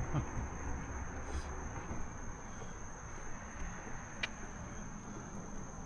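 Insects in summer vegetation keeping up a steady high-pitched drone, under a low rumble, with a single click about four seconds in.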